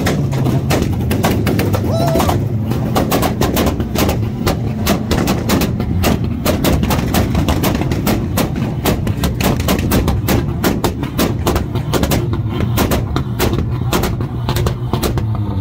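Car engine held on a two-step launch limiter: a continuous rapid string of sharp exhaust pops and bangs, several a second, over the steady drone of the engine held at the limiter's revs.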